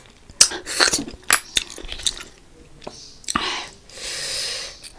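Close-miked eating: wet chewing with sharp clicks of utensils or shells in the first couple of seconds, then a long slurp from about three and a half seconds in.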